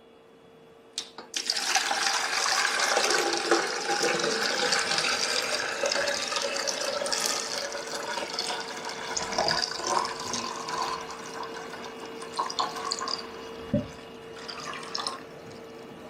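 Water pouring into the water tank of a De'Longhi La Specialista espresso machine: a click about a second in, then a steady stream of water that thins out in the second half, with a few light knocks near the end.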